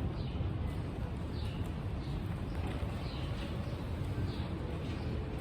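Wind buffeting the microphone in a steady low rumble, with a bird's short, high, falling chirps repeating every second or so.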